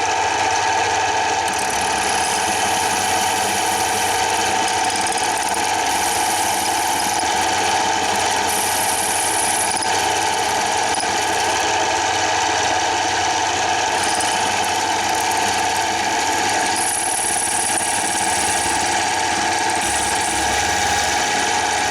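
Milling machine spindle running steadily under load, drilling out a pulled stud thread to take a thread-repair insert, with a high squeal from the cut that comes and goes.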